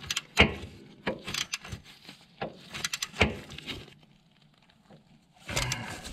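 Socket ratchet clicking in short, irregular strokes as a differential drain bolt is wound in tight, with light metallic clinks. The clicking stops about four seconds in, and a brief scuffling noise follows near the end.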